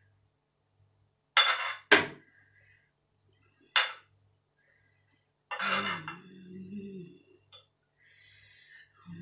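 Several short scrapes and clinks of cutlery against a plate while eating spaghetti. A brief hummed voice sound comes about halfway.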